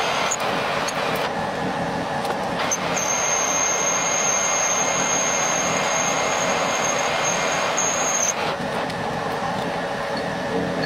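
Metal lathe running, turning a metal shaft under a cutting tool. A steady machine noise, with a high steady whine that comes in about three seconds in and stops about eight seconds in.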